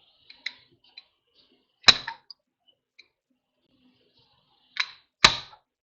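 Slide hammer being worked to pull an old rear axle seal out of the axle housing: sharp metal clacks as the weight hits its stop, one about two seconds in and two more near the end, with a few light clicks between.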